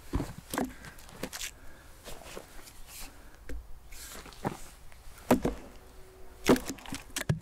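Irregular knocks and snaps of sticks being handled and broken for a campfire, the loudest about five and six and a half seconds in.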